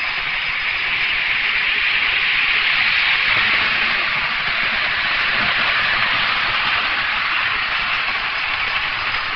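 Model train running on the layout track: a steady rushing hiss of wheels and motor that swells about three seconds in and slowly fades.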